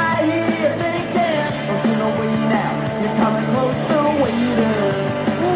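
Rock song with singing, played back from a cassette on a Sony WM-EX641 Walkman through a small external speaker.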